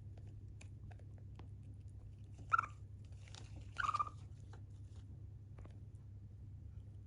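Pet Siberian chipmunk chirping twice, a short chirp about two and a half seconds in and a longer one at about four seconds that falls slightly in pitch, amid small clicks of it chewing food.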